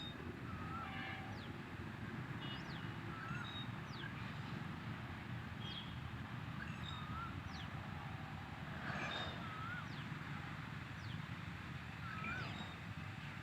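Several birds calling in a forest over a steady low rumble. One bird repeats a short wavering call every second or two, while others add high, quick downward-sweeping notes.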